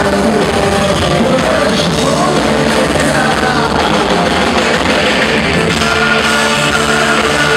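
A rock band playing live on electric guitar, bass guitar, keyboards and drums, with singing.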